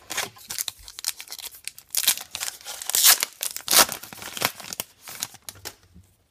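Foil trading-card pack wrapper being torn open and crinkled in the hands: a dense, crackling rustle, loudest in the middle.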